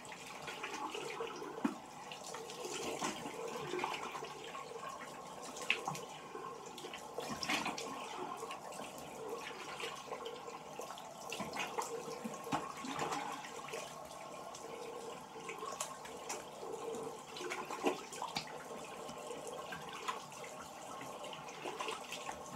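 Water running from a tap into a sink, with irregular splashing as a face is rinsed by hand.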